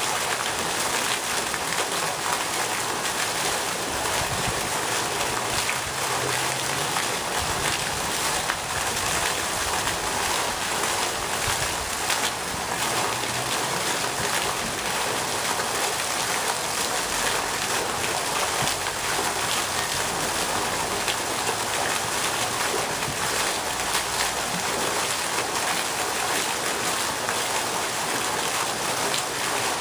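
Pond fountain jet spraying up and falling back onto the water surface: steady, unbroken splashing.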